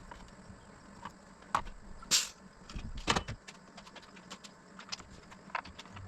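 Light clicks, taps and rattles of a compression tester and hand tools being handled under the hood, with one short hiss about two seconds in.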